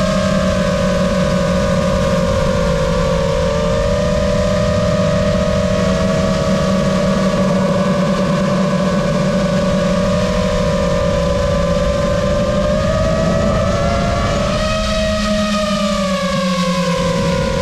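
Lumenier QAV-S 5-inch FPV quad's brushless motors whining in flight. The pitch holds mostly steady, climbs briefly about three quarters of the way through, then dips and settles again near the end.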